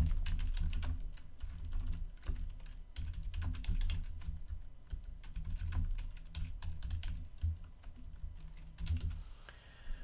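Typing on a computer keyboard: irregular runs of key clicks as a search is entered, over a low hum that comes and goes.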